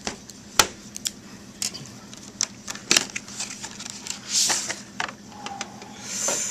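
Trading cards and their pack being handled: a string of sharp clicks and snaps, with two brief rustling swishes, one about four seconds in and one near the end.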